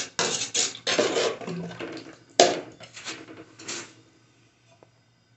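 Metal spoon scraping and clinking against the side of an aluminium pot as okra curry is stirred, with one louder clank about two and a half seconds in. The stirring stops after about four seconds.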